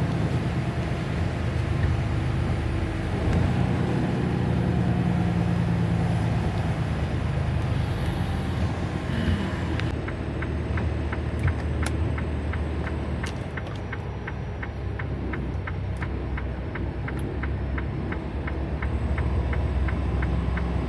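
Semi truck's diesel engine running with a low rumble, heard from inside the cab, as traffic comes to a stop. About halfway through, a steady ticking starts, about two to three clicks a second: the truck's flasher relay, as turn signals or hazard lights are switched on.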